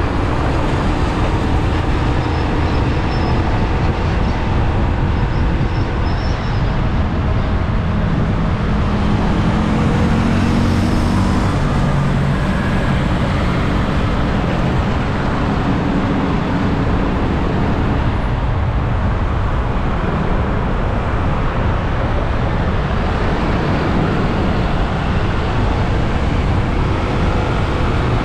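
Riding noise heard from the back of a motorcycle taxi: the motorcycle's engine running steadily under a dense, even rush of road and wind noise, with surrounding city traffic of cars and buses. The engine pitch rises for a few seconds near the middle.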